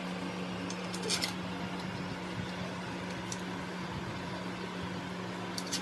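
Steady low hum of a fan or motor running, with a few light clicks and taps from hand work on a bare engine block: a pair about a second in, one around three seconds in and a couple near the end.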